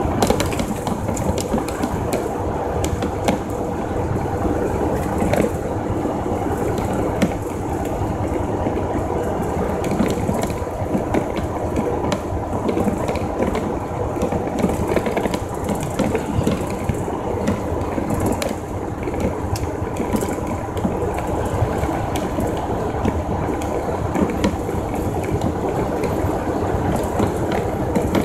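Inside a semi truck's cab at highway speed: steady engine and road drone with a constant irregular clicking and rattling from the cab.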